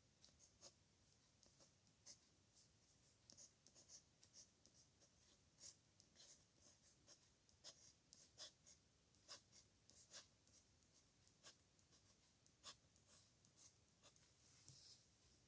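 Faint scratching of a pen nib on paper in short, irregular strokes, several a second, as characters are written by hand.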